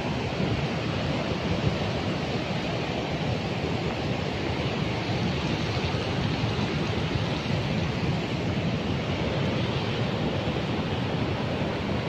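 Strong wind blowing across the microphone, over the steady noise of ocean surf breaking on the shore.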